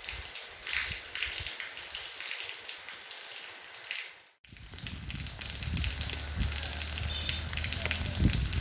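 Rain falling: a steady hiss of many small drops. It cuts out abruptly about halfway through, then returns with a low steady rumble underneath.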